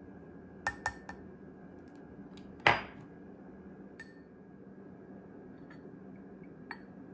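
Spoons tapping and clinking against a glass mixing bowl while spice powder is knocked in: a few light taps about a second in, one sharp knock with a brief ring about three seconds in, and a faint clink near the end. A steady low hum runs underneath.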